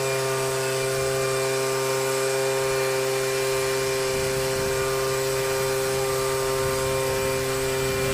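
A small racing-boat engine running at a steady speed, its buzzing note holding one pitch without revving up or down, with some added low rumble from about four seconds in.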